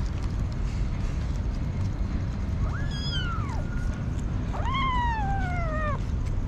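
Kitten meowing twice: a short call about two and a half seconds in, then a longer one that jumps up and slides down in pitch, over a steady low rumble.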